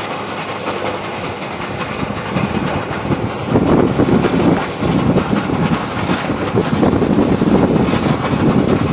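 New Holland D2000 large square baler running in the field behind its tractor: a steady, dense mechanical clatter over engine noise, getting louder about three and a half seconds in.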